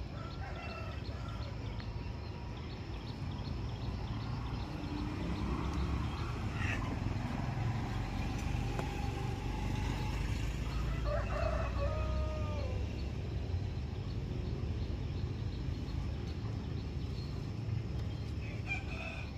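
A rooster crowing, one clear crow about two-thirds of the way through with a few fainter calls around it, over a steady low rumble.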